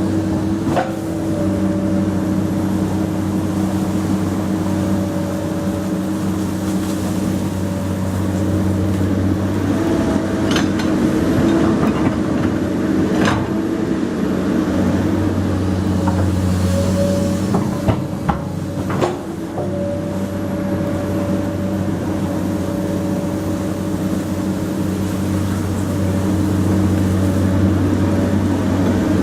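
Komatsu PC200 hydraulic excavator's diesel engine running steadily as it works, with several sharp metallic clanks scattered through.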